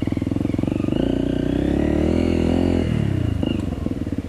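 Trail motorcycle engine under way, revving up about a second in, held on the throttle, then dropping back to a lower, pulsing beat near the three-second mark.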